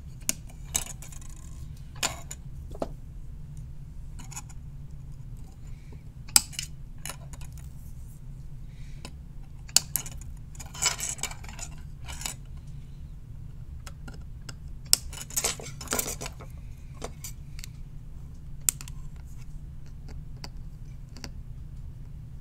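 Wire cutters snipping the excess LED leads off a soldered circuit board: about seven sharp snips spread through, with small clinks and rattles of handling and cut wire ends between, over a steady low hum.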